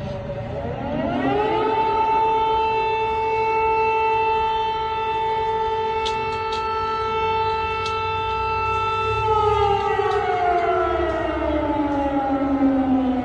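Air-raid (civil defense) siren sounding an alert. It winds up to a steady wail, holds it for about eight seconds, then winds down slowly near the end.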